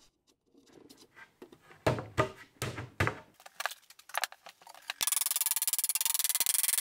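Plywood panels knocking and scraping against a plywood cabinet carcass as they are set into its rabbets: a few sharp wooden clunks, then lighter clicks. About five seconds in, a loud steady hiss with rapid fine ticking starts abruptly.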